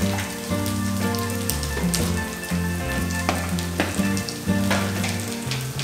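Chopped onions and green chillies sizzling in hot oil in a pan, with a wooden spatula stirring and scraping the pan now and then.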